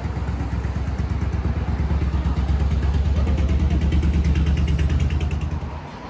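Motorcycle engine running close by, growing louder, then stopping abruptly near the end.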